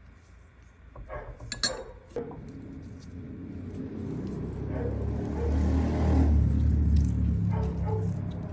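A few sharp clinks of dishes about a second and a half in, then a low rumble that swells over several seconds and fades near the end.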